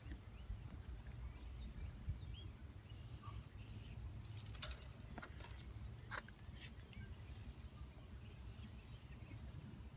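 Faint, scattered bird chirps over a steady low rumble, with a brief rustling burst about four and a half seconds in and a few sharp clicks after it.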